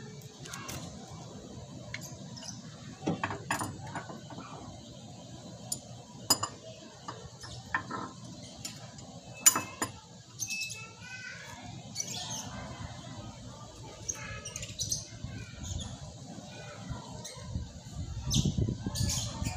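Scattered metallic clicks and knocks of a wrench working on the back of a rear drum brake's backing plate, the sharpest about halfway through, with birds chirping in the background.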